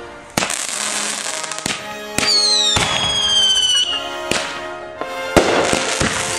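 Fireworks going off: sharp bangs every second or so, with a long whistle falling in pitch in the middle, and music playing underneath.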